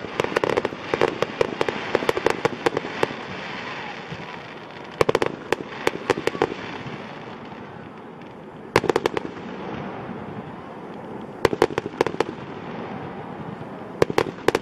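Fireworks display: aerial shells bursting and crackling, sharp pops and snaps coming in clusters every few seconds.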